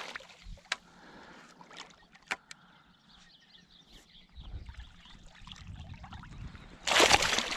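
Water disturbed by a hooked largemouth bass being fought up to a float tube: a few sharp clicks, a low rumble building in the second half, then a loud burst of splashing near the end as the fish thrashes at the surface.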